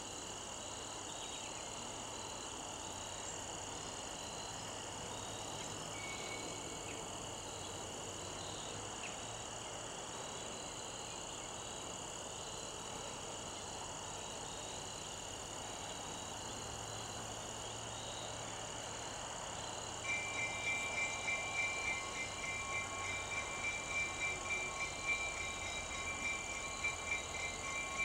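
A steady chorus of crickets and other insects over the low running of a slowly approaching diesel locomotive. About two-thirds of the way in, a grade-crossing warning bell starts ringing rapidly and becomes the loudest sound.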